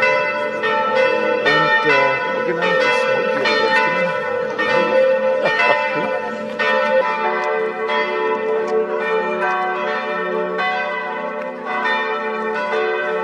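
Several church bells ringing together, strokes coming in quick succession with their long ringing notes overlapping into a continuous peal.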